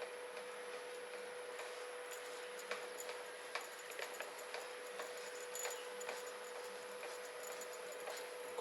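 Faint, irregular clicks and ticks of plastic parts as a fitting is lined up and screwed by hand onto a Kärcher electric pressure washer.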